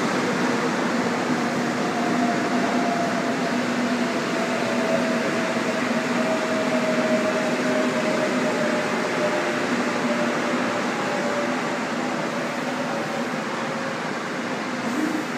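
Seoul Metro Line 1 VVVF inverter electric train pulling into the station and braking: a steady rumble of wheels on rail, with a low hum and a higher electric whine that slowly falls in pitch as the train slows to a stop.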